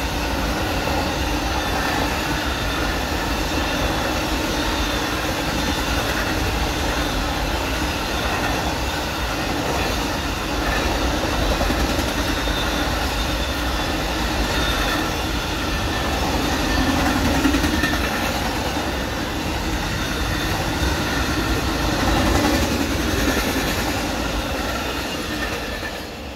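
Amtrak Auto Train's bi-level autorack cars rolling steadily past on the rails, a continuous rumble of wheels on track with a thin steady whine over it. The sound fades near the end as the last car clears.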